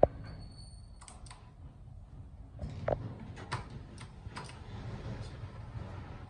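Pushbuttons on a Montgomery KONE elevator's stainless-steel car operating panel clicking as they are pressed, a string of sharp clicks at uneven intervals over a low hum. A brief faint high beep sounds just after the start.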